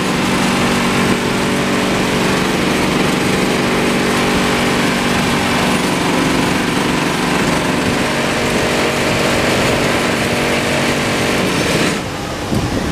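Blower of a steam form-finishing dummy running steadily, a hum with a strong hiss of air and steam, holding a garment inflated for ironing. It cuts back near the end.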